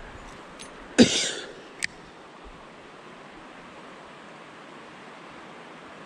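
Steady rush of a fast-running small mountain creek. About a second in comes a brief louder swish, with a few sharp clicks around it, likely the handling of the rod and spinning reel.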